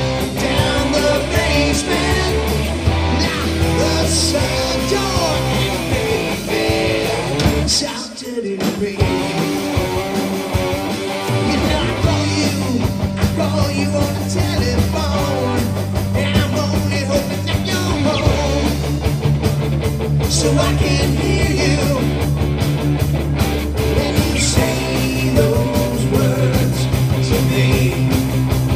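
Live rock band playing a hard-rock song on electric guitars, bass guitar and drums, with a brief break about eight seconds in before the full band comes back.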